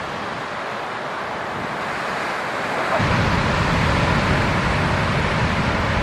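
Ocean surf washing steadily. About halfway through, a low wind rumble on the microphone sets in and the whole sound grows louder.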